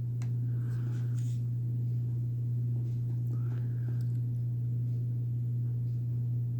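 A steady low hum, with a few faint clicks and soft handling noises over it.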